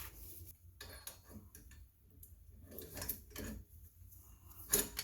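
Scattered light metallic clinks and clicks of hand tools and steel brake or hub parts being handled, with a sharper clink near the end.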